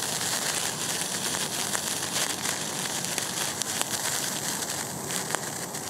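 A handheld sparkler burning, giving a steady fizzing crackle of small sparks that thins a little near the end.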